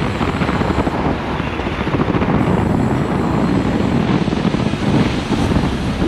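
Adventure motorcycle engine running steadily as the bike rides along a gravel road, with wind noise on the microphone.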